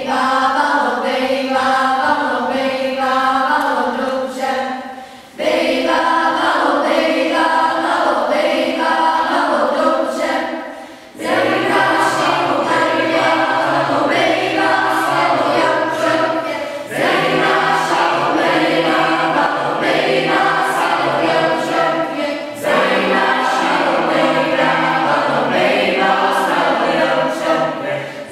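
Choir of children and teenagers singing together in phrases with short breaks between them. A lower part joins about eleven seconds in.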